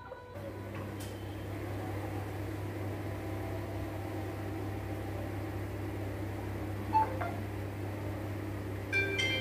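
Steady low mechanical hum with a faint room hiss, the kind a running fan or air conditioner makes. A faint click comes about a second in and a short knock about seven seconds in. Bright chiming music notes begin near the end.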